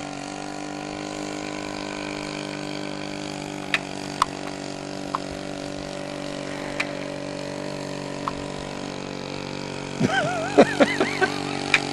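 Two-stroke string-trimmer engine powering a radio-controlled boat, running at a steady speed with an even droning tone. A few short sharp clicks sound over it.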